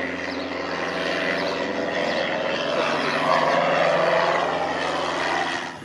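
Single-engine high-wing light aircraft's propeller engine running steadily as the plane climbs past overhead, growing louder toward its closest point and then cutting off suddenly near the end.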